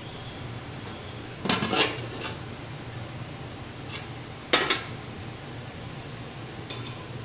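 Aluminium lid of a biryani pot handled with metallic clatters: it rattles against the pot as it is taken off about a second and a half in, then lands on the steel gas stove with one sharp clank about halfway through.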